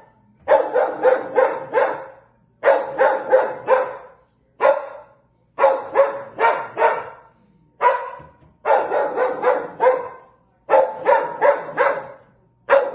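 A dog barking in runs of three or four sharp barks, with a single bark now and then and short pauses between runs: alert barking at a stranger outside the window.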